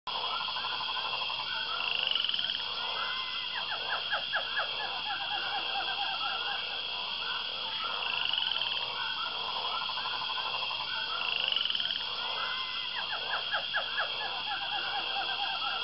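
A chorus of frogs croaking, with clusters of quick repeated calls now and then over a steady high drone.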